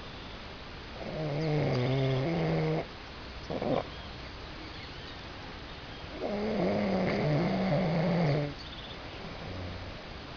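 A man snoring: two long, loud snores of about two seconds each, some five seconds apart, with a brief sharp sound between them.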